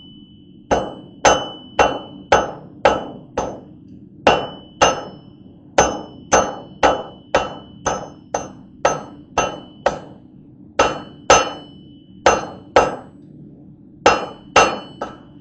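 Hand hammer striking a hot welded wire steel blade on an anvil, forging its tip and cutting edge: runs of blows about two a second with short pauses between them, each blow ringing. A steady low hum runs underneath.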